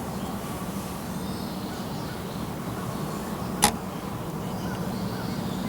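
Outdoor background of a steady low hum with faint, thin bird calls now and then. There is one sharp click about three and a half seconds in.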